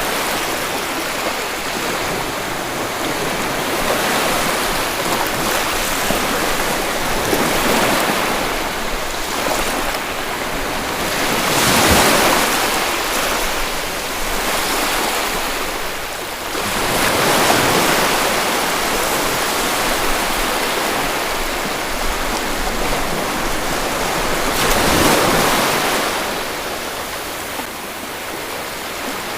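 Sea waves washing onto a shore: a steady rush of surf, with a few louder surges several seconds apart as waves break.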